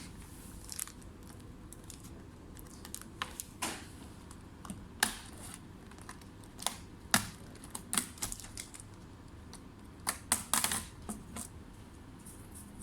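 Irregular sharp clicks and taps of a laptop being handled, plastic or keys clicking. The loudest come about five, seven and ten seconds in.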